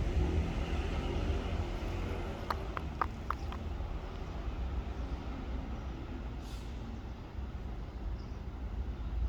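Steady low rumble of outdoor street background noise, with four short sharp clicks close together about two and a half to three and a half seconds in.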